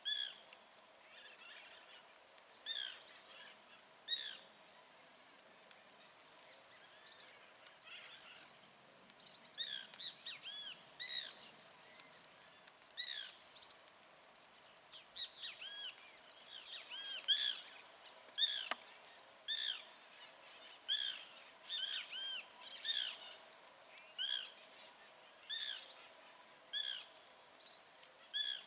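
Blue-black grassquit (tiziu) singing: a very short, sharp high note repeated over and over, about once or twice a second, mixed with lower arched chirps.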